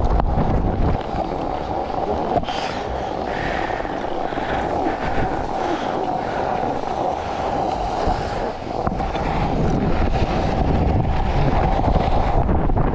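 Wind rushing over a GoPro's microphone on a fast downhill ski run, a steady low rumble, with skis hissing and scraping over the snow that come and go.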